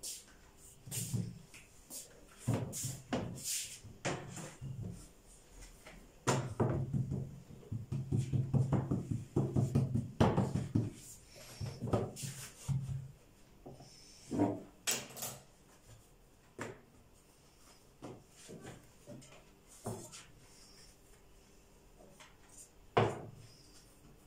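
Knife tapping on a wooden board and pieces of dough being laid into a metal baking tray: scattered knocks, with a quick run of taps in the middle and one sharp knock near the end.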